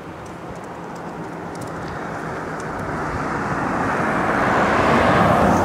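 A road vehicle approaching and passing close by: its tyre and road noise swells steadily for about five seconds, peaks near the end, then starts to fade.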